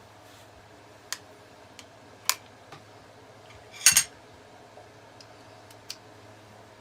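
Sharp clicks and taps of a screwdriver and gun parts being handled while taking apart an 1866 lever-action rifle, a few single clicks spaced apart with the loudest, a short clatter of several clicks, about four seconds in.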